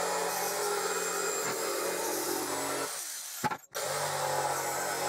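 Bosch PST jigsaw running at a steady speed, its blade cutting a curve through a veneered block board panel. The saw stops briefly about three and a half seconds in, then runs again.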